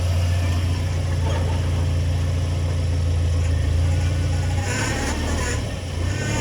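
2020 Subaru Outback engine and CVT running with a steady low drone, the grinding noise the owner reports when the transmission is in Drive or Reverse. The drone changes a little past two-thirds through, with a brief higher rushing sound.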